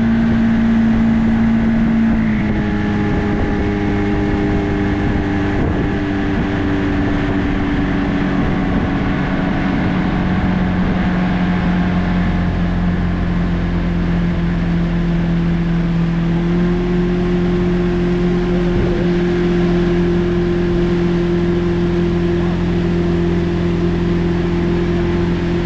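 Motorboat engine running steadily at speed, with water rushing past the hull. Its pitch dips about two seconds in and rises slightly again about two-thirds of the way through.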